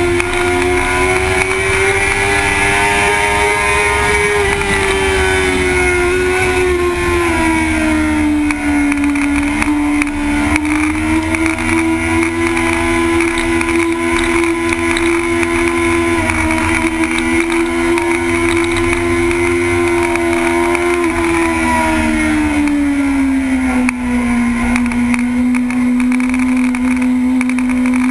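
Sport bike engine running hard at high revs, heard from on board with wind rumbling over the microphone. The engine note holds steady and eases down in pitch twice, around a third of the way in and again near the end.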